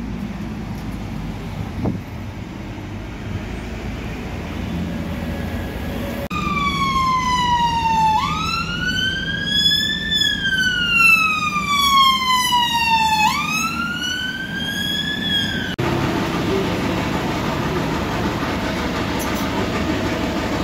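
Emergency vehicle siren in a slow wail, pitch falling slowly and then sweeping back up, about one rise-and-fall every five seconds; it cuts in abruptly about six seconds in and cuts off abruptly some ten seconds later. Before it there is street traffic noise, and after it a steady engine hum.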